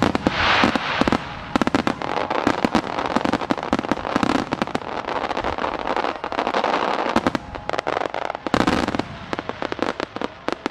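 A starmine: aerial fireworks shells fired in rapid succession, bursting in many sharp bangs close together. The bangs thin out and grow quieter near the end.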